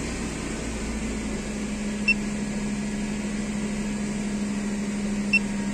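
Car engine running steadily at a raised idle of about 1,900 rpm, a constant hum. Two short beeps from the OBD scanner's keys, about two seconds in and near the end.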